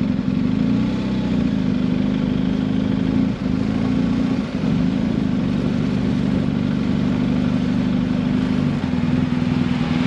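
Motorcycle engine running steadily at low road speed, with two brief dips in level about three and a half and four and a half seconds in.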